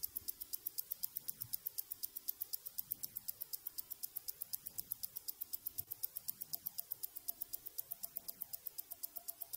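Fast, even ticking at about seven ticks a second, the ticking of a mechanical watch, with a faint sweeping hiss beneath it.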